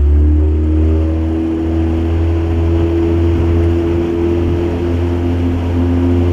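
A fishing boat's outboard motor running steadily at speed, just after throttling up, with the boat underway across open water.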